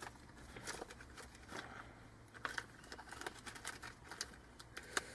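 Faint, irregular clicks and light rustling from plastic cards and a wallet being handled and sorted.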